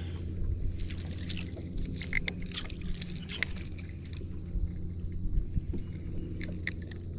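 Light clicking and rattling of a crankbait and its treble hooks as a bass is worked off the hook, over a steady low hum.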